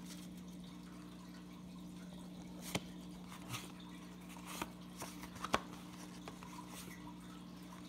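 Baseball cards being handled and flipped through: about six short, light clicks and flicks spread across the middle of the stretch, over a steady low hum.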